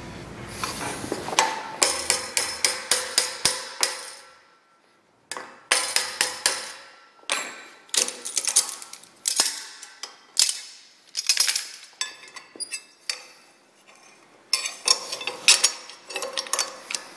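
Hammer driving a punch against a bent steel motorcycle saddlebag mount held in a bench vise, in several runs of sharp metallic blows a few a second with short pauses between. The blows are straightening crash-twisted sheet metal.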